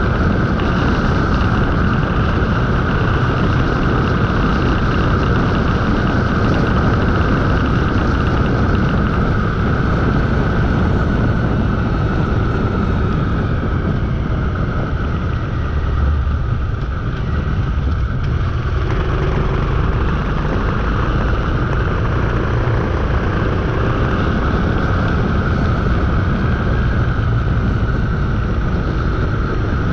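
Motorcycle riding along, heard through a mounted camera: a steady rush of wind on the microphone over the running engine, easing off briefly about halfway through.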